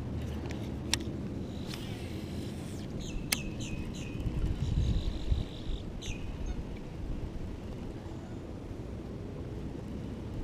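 Scattered small clicks and taps from hands handling a baitcasting reel and rod, over a low rumble of wind on the microphone.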